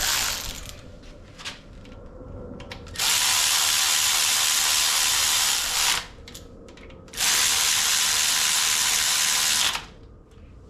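Hand-held power driver running down bolts in two long runs of about three and two and a half seconds, with a short pause between. A brief clatter comes right at the start.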